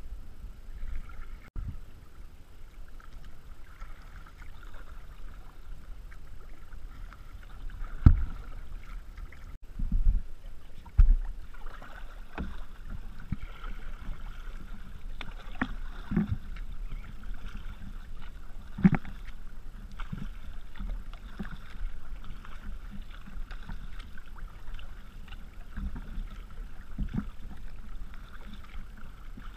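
Kayaks being paddled through choppy water: paddle blades dipping and splashing and water lapping against the hull, with a scatter of short knocks, the loudest about eight and eleven seconds in.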